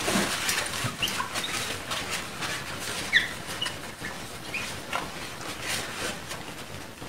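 A cloth wiping the glass of a mirror: repeated rubbing strokes with short, high squeaks of cloth on glass, the loudest squeak about three seconds in. The cloth is wiping a drawn staircase off the mirror.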